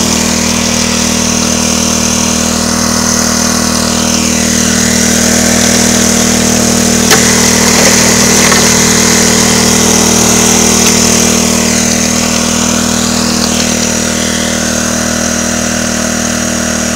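Small gasoline engine of a gold suction dredge running at a steady speed, driving its water pump, with one short knock about seven seconds in.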